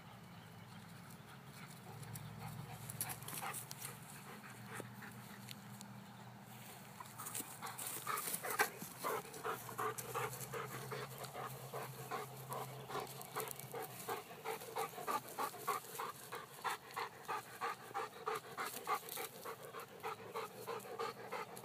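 Weimaraner panting hard from chasing balls: quick, even breaths about two to three a second, growing loud about a third of the way in.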